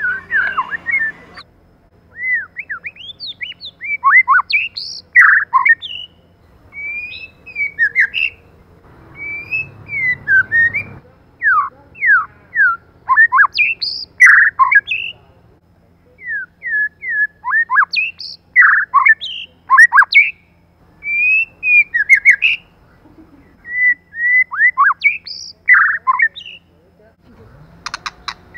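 White-rumped shama calling and singing: short phrases of clear whistled notes and quick up-and-down pitch sweeps, a phrase every second or two.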